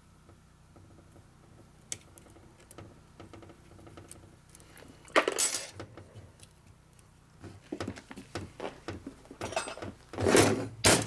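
Metal tools and small transmission parts clinking and clattering on a workbench as a 4-speed transmission is taken apart. There are a few light clicks, a sharp clank about five seconds in, and then a run of irregular clatters that is loudest near the end.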